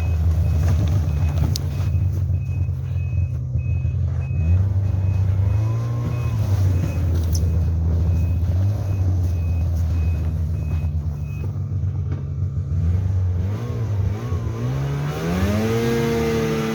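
Off-road vehicle's engine running hard and revving up and down several times while it is manoeuvred back from a hill it could not climb, with a rev climbing near the end. A high reversing beep repeats evenly through most of it and stops about two thirds of the way in.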